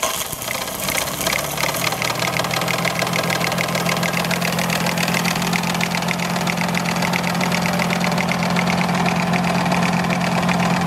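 3D-printed Pelton turbine spinning under water jets and driving a small motor used as a generator under resistive-heater load: a steady hum with a fast whir, over the hiss and splash of the water. It settles in about a second or two in and slowly gets louder as the second hose's water comes through.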